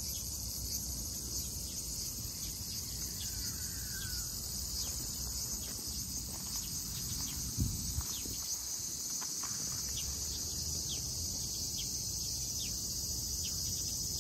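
Steady high-pitched chorus of insects, with a single low thump a little past halfway and scattered faint ticks.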